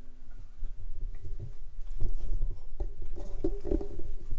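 Irregular knocks, taps and rubbing close to the microphone: handling noise as the camera is moved in for a close-up over the engine, with a faint steady hum underneath.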